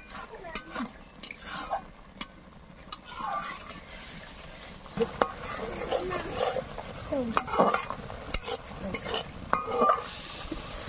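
Metal spatula stirring and scraping through bubbling fish curry in a metal kadai over a wood fire, with repeated clinks of the spatula against the pan over a steady sizzle.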